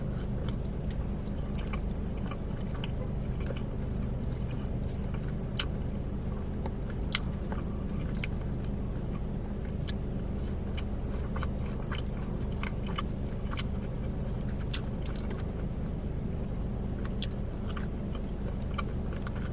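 Close-miked chewing and biting of fried battered hot orange chicken, with scattered crisp crunches and wet clicks, over a steady low hum.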